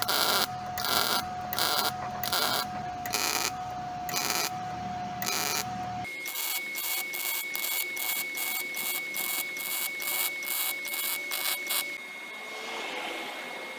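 Metalworking power tool: a steady tone with sharp bursts about two a second, then after a sudden change about six seconds in, a higher steady tone with quicker bursts about four a second.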